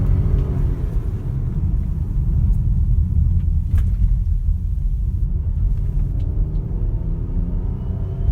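Car engine revved, dropping back toward idle just after the start and revving up again from about six seconds in, over a steady low rumble. A faint high whistle rises and falls with the revs: the unexplained whistle that appears at raised engine speed.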